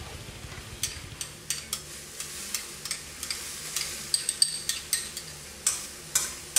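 A utensil stirring garlic into a pan of wine, clam juice and garlic as it cooks down: irregular clicks and scrapes against the pan, with a few light clinks, over a faint sizzle.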